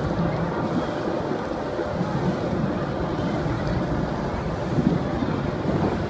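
Wind buffeting the microphone: a steady, rumbling rush over the background of a crowded swimming pool.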